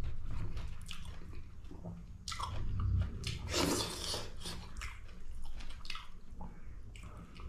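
A person chewing and biting food close to the microphone: many short wet clicks, with a louder rasping noise about three and a half seconds in.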